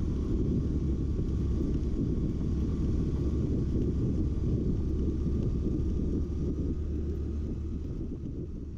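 Steady low rumble of a scooter riding along, picked up at its handlebars, fading down over the last couple of seconds.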